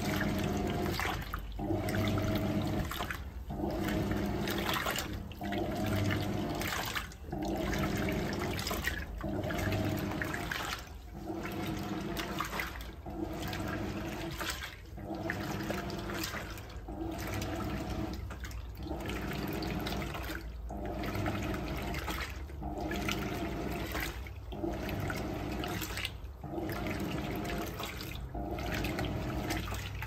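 Hoover Electronic 220M top-loading washing machine agitating a load in its main wash: water sloshing around the agitator over a steady motor hum, with a short dip about every two seconds as the agitator reverses stroke.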